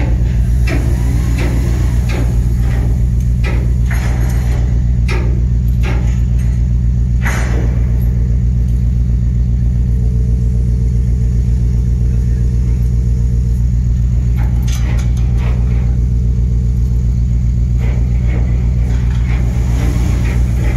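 Heavy diesel engine running steadily with a loud, even low drone, with sharp knocks about once a second through the first half and again near the end.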